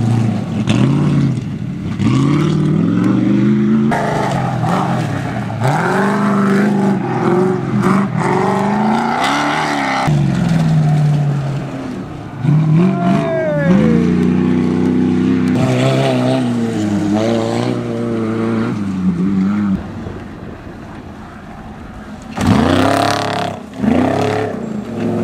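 Off-road race car engines revving hard, their pitch repeatedly climbing and dropping with throttle and gear changes as several cars take the turns in turn. The engine noise falls away for a couple of seconds near the end, then a loud run of revs follows.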